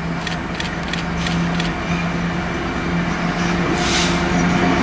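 Class 66 diesel locomotive running light, its two-stroke V12 diesel engine droning steadily and growing louder as it approaches. There are a few sharp clicks in the first two seconds and a brief hiss about four seconds in.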